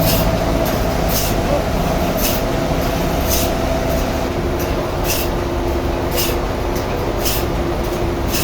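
Sawmill machinery running steadily: a constant mechanical hum and low rumble, with a short hiss about once a second.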